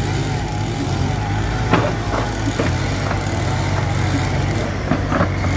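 Mitsubishi BD2F bulldozer's engine running steadily at working load, with several sharp knocks over the steady engine note.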